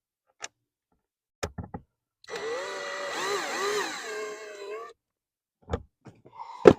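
Cordless power driver motor running for about two and a half seconds, its pitch rising and falling as the speed changes, while it backs out the last blower-motor bolt. Short clicks come before it and two sharp knocks near the end.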